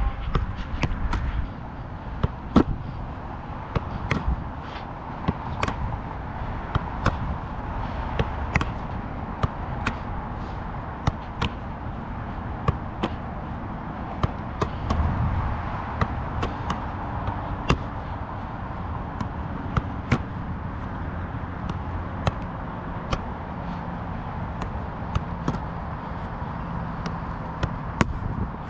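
A football being touched and kicked on artificial turf: a long run of sharp knocks, irregularly spaced about a second apart, over steady background noise.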